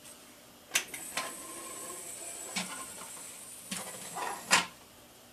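A gas-spring-powered 3D-printed telescoping bat extending: a sharp click about a second in as it is set off, then a steady high hiss with scattered clicks of the plastic sections sliding out, ending in a loud clack.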